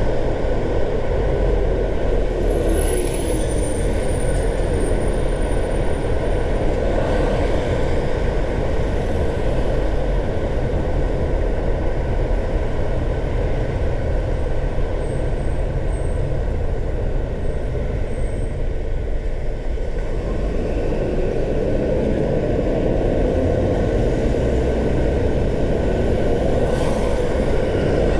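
Car driving on city roads: steady road noise from tyres and engine, with no break.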